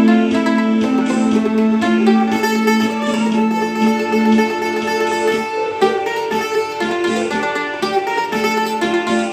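Mandolin playing a minor-key melody in quick plucked notes over a held low note, which drops out about five and a half seconds in and comes back near the end.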